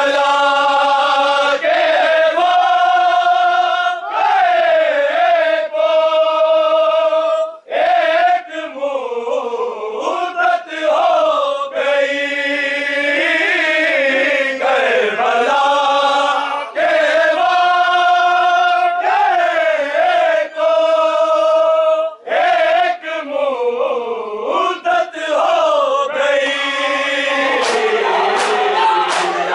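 A man chanting a Muharram nauha (lament) in long, drawn-out, wavering notes, phrase after phrase with short breaks for breath. Near the end, crowd voices and a quick run of sharp slaps come in: mourners starting matam (chest-beating).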